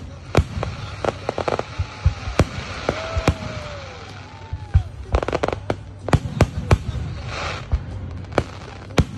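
Fireworks going off: an irregular run of sharp bangs, with two bursts of rapid crackling and a short hiss.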